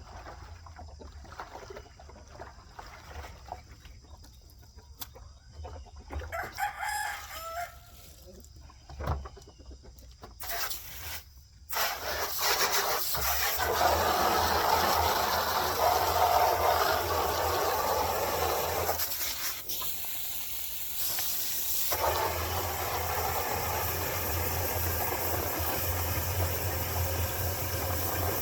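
A rooster crows once, about seven seconds in, among chickens. From about twelve seconds on, a loud steady noise covers the rest, with a short drop about twenty seconds in.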